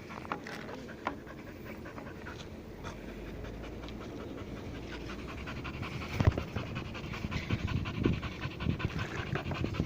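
A dog panting hard and fast, worn out from running after a ball. From about six seconds in, irregular thumps and rustles grow louder over the panting.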